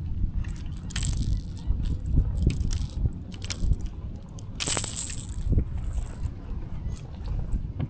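Wind buffeting the microphone as a steady low rumble, with brief sharp noises about a second in and again around five seconds in.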